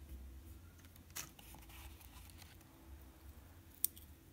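Faint handling of small parts in a foam-lined cardboard box: a small USB charger is put down and tiny LiPo batteries are picked up, with a few soft clicks and one sharp tick near the end.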